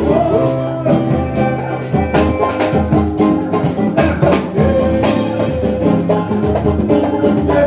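Samba group playing an instrumental passage: drums and percussion keep a steady beat under a bright melodic line, with no singing.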